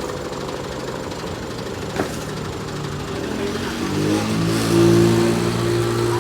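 An engine running, its pitch rising about three and a half seconds in and then holding steady at a higher speed. There is one sharp knock about two seconds in.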